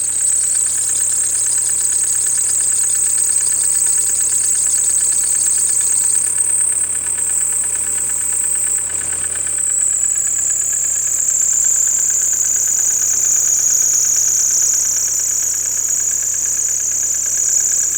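Kia Carnival engine idling with a steady high-pitched whistle, whose pitch sags slightly about halfway through. The owner suspects the alternator drive belt, and splashing water on it has made the whistle louder.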